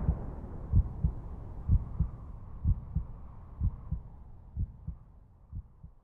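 Heartbeat sound effect: pairs of low thumps about once a second, growing fainter over a fading rumble, and stopping near the end.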